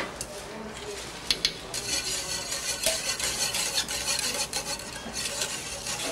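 Wire balloon whisk stirring and scraping around a copper sauté pan, beating butter into a hot chocolate and sherry sauce to thicken it, with a couple of sharp knocks about a second and a half in.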